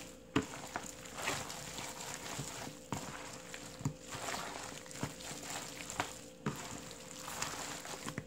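Gloved hands tossing and rubbing salted napa cabbage in wet chili seasoning in a large bowl: wet squishing and rustling, with a few sharper slaps at irregular moments.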